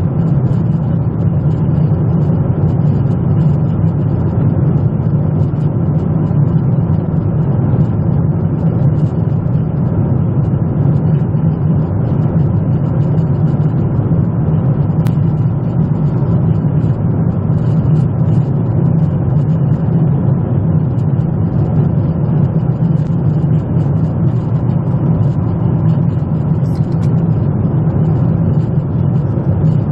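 Steady in-flight cabin noise of a Boeing 777 from a window seat: a constant deep rumble of the engines and rushing air, unchanging throughout, with a few faint ticks on top.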